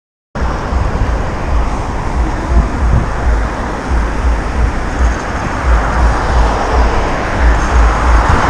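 Wind buffeting the microphone with rolling noise while riding along a city street on a BMX, an uneven low rumble over a steady hiss, coming in just after a brief dropout at the start.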